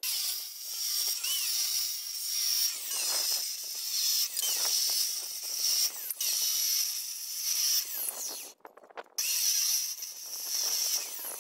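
Abrasive chop saw cutting 50×50 galvanized steel square tubing: a dense, hissy grinding noise with a strong high edge that rises and falls from cut to cut, with a short break about three-quarters of the way through.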